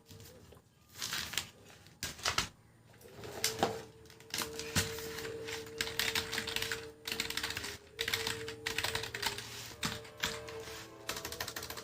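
Typing on a Zebronics Zeb-K20 membrane keyboard: quick, uneven runs of key clicks with short pauses between them.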